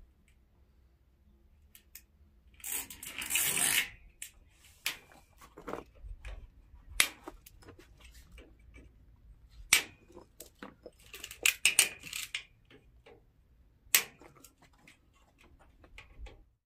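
Irregular sharp clicks and knocks, with a scraping, rustling burst about three seconds in and another cluster of quick clicks and rustles about eleven to twelve seconds in.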